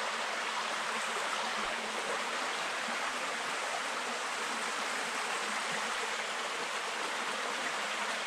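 Shallow river stream running over rock, a steady rushing of water.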